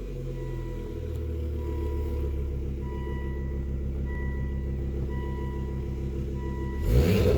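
Volvo S60R's turbocharged five-cylinder engine idling steadily with an open cylindrical performance air filter on the intake, then one quick throttle blip near the end that rises and falls back to idle.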